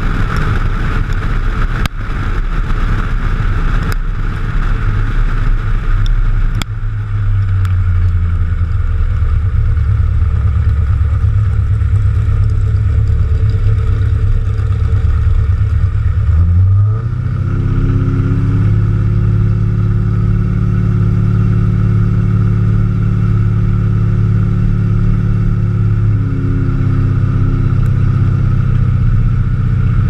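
Car engine and exhaust heard from a camera mounted on the car's body, running at steady low revs as the car rolls along, with wind noise over the microphone for the first six or seven seconds. About 17 seconds in, the engine note rises quickly and then holds steady at the higher pitch.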